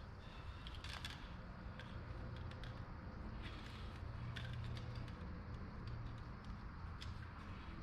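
Scattered light clicks and knocks of objects being handled, over a faint low hum.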